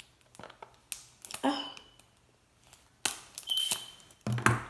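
Scissors snipping through the plastic packaging of a toy surprise egg: a series of short cuts and rustles with quiet gaps, louder from about three seconds in.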